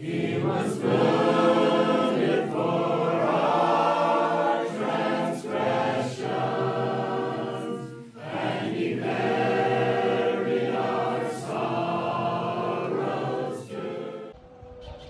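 A choir singing in long phrases, with a brief pause about eight seconds in and the sound dropping away near the end.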